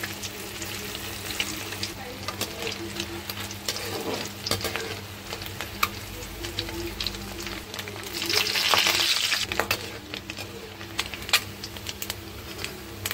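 Batter-coated boiled egg pieces deep-frying in hot oil, a steady sizzle full of sharp crackles and spits, with a perforated metal skimmer stirring them in the kadai. The sizzle swells loudest for a second or so about two-thirds of the way through.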